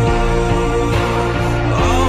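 Instrumental opening of a pop song: held chords over a pulsing bass line and beat, the harmony shifting about a second in, with no voice yet.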